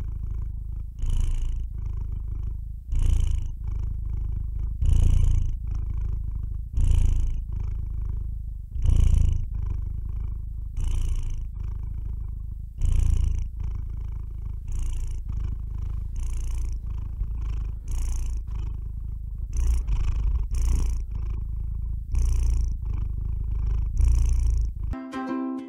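Domestic cat purring close to the microphone: a continuous low rumble that swells about once a second with each breath. Ukulele music comes in near the end.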